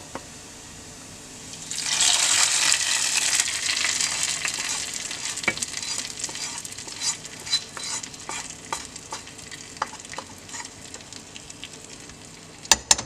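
Hot oil tempering of fried shallots poured into chicken curry: a loud sizzle starts about two seconds in and slowly dies down. A spoon then stirs it in, with scattered light clicks against the pot.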